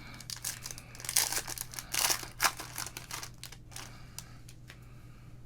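Plastic or foil trading-card pack wrapper crinkling and tearing open in irregular crackles, over a faint steady low hum.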